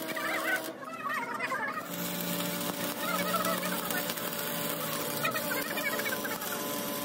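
Stick-welding arc crackling and hissing as an electrode lays weld onto a worn excavator bucket pin to build it back up; the crackle stops for about a second near the start and then resumes. Repeated warbling, bird-like calls sound over it.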